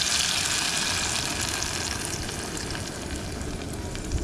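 Blended chili, onion and garlic paste sizzling hard in hot oil in a camping pot, the loud sizzle slowly easing off as the paste goes in.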